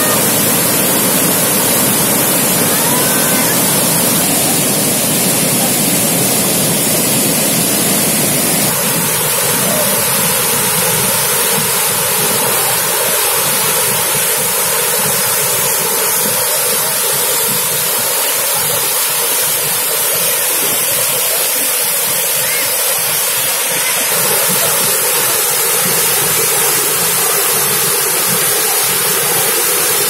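Dhuandhar Falls on the Narmada River: a broad cascade of fast water pouring over the rock ledge in a loud, steady rush. About nine seconds in, the lower part of the sound thins out.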